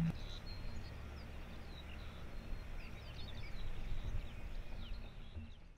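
Several small birds chirping and singing in short, quick notes over a low outdoor rumble, fading out near the end.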